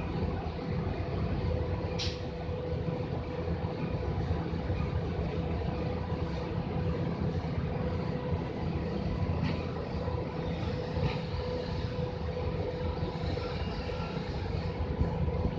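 Wind rumbling against the microphone, with a steady hum underneath and a few faint ticks.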